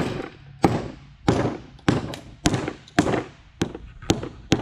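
Rubber mallet striking the side of an HDPE plastic casting mold, about nine blows in a steady rhythm of a little under two a second, each a thud with a short ringing tail. The blows are tapping the mold's sides to knock the cured epoxy board blank loose.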